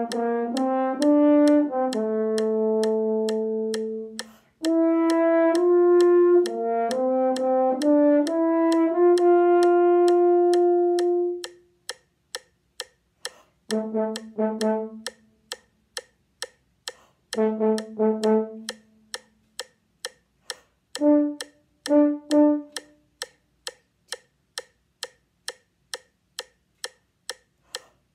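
A French horn playing a single part: legato phrases of held and moving notes for about the first twelve seconds, then long rests broken by a few short notes near the middle. A metronome clicks steadily about twice a second throughout, heard plainly in the rests.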